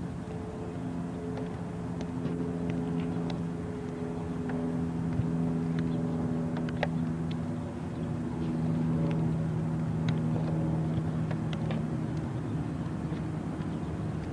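A steady engine-like hum of several held tones that dips briefly about halfway through, with a few faint clicks.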